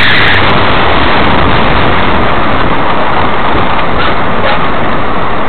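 Loud, steady rush of wind and tyre-on-road noise picked up by a camera mounted on the outside of a moving Renault Mégane Coupé beside its wheel, with the car's engine humming underneath.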